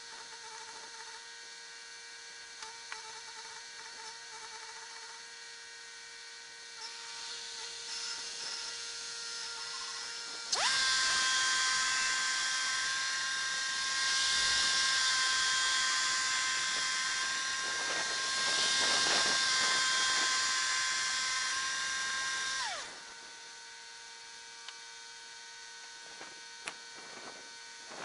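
Wood-Mizer LT70 portable band sawmill cutting a beetle-killed pine log. A steady high whine and hiss start suddenly about a third of the way in, hold for about twelve seconds, then cut off sharply. Before and after the cut, the mill runs with a low steady hum.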